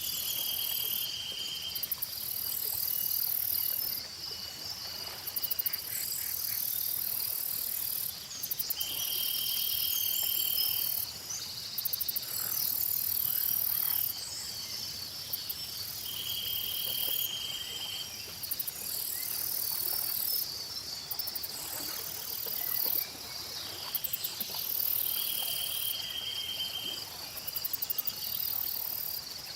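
A chorus of insects: crickets trilling steadily, with a very high buzzing insect song that switches on and off every couple of seconds, and a shorter pulsed trill that comes back about every seven or eight seconds. A few short bird chirps sound over it.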